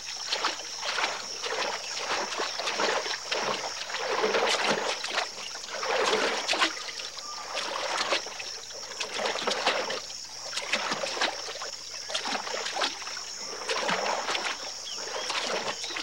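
Marsh deer bounding through shallow floodwater at a run, their legs throwing up a rapid, irregular string of splashes.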